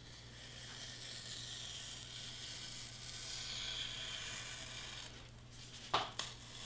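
Hobby knife blade drawn through foam board in one long smooth stroke of about four seconds, a scratchy hiss, followed by two sharp clicks near the end.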